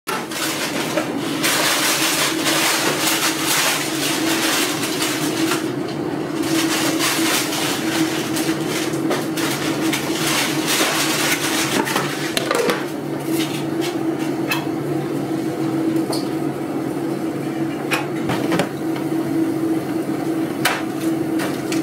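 Kitchen work sounds: a steady low hum with a noisy haze, and scattered clicks and knocks of utensils and plastic containers being handled.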